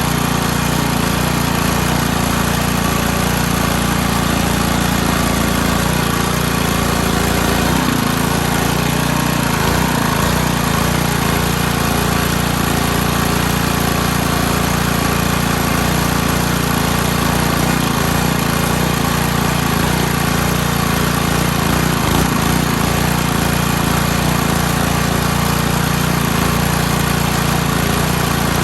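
Small petrol engine running steadily at constant speed, with no change in pitch or level throughout.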